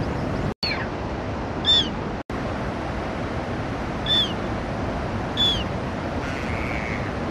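A first-winter black-headed gull calling: a few short calls, each dropping in pitch, about a second or two apart, with a fainter, longer call near the end. Steady background noise runs underneath, broken twice early on by a split-second dropout to silence.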